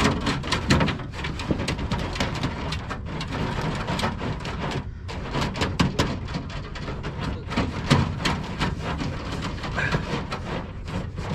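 Wiring harness being pulled through a car body: a continuous run of irregular clicks, scrapes and rustles as the wires and connectors drag along the sheet metal.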